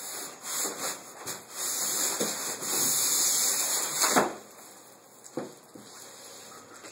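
A heavy PC tower case being pulled out of its tight cardboard box: sustained rubbing and scraping of packaging against cardboard, loudest about four seconds in, then a couple of light knocks.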